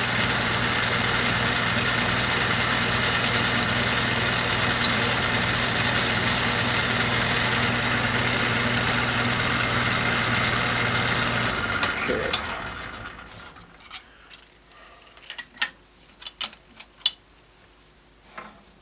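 Metal lathe running with a steady motor hum while a half-inch drill bores into the spinning workpiece. About twelve seconds in, the lathe is switched off and runs down, followed by scattered sharp metal clinks of tools and parts being handled.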